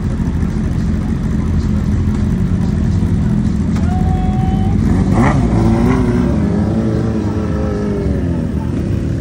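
Sport motorcycle engines idling together in a steady low rumble, with a short steady tone about four seconds in. From about five seconds in, an engine's revs rise and fall for a few seconds as a bike pulls away.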